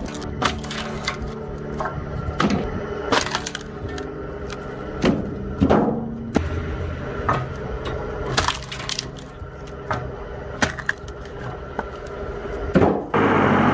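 Compact electric log splitter: its brushed motor hums steadily while firewood cracks and splinters apart in a string of sharp snaps. Near the end the sound cuts abruptly to a steadier machine noise.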